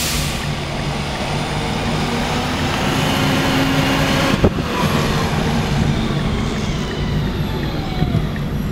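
Rear-loading garbage truck's diesel engine running as the truck drives slowly along, with a faint whine that rises and then falls and one sharp knock about halfway through.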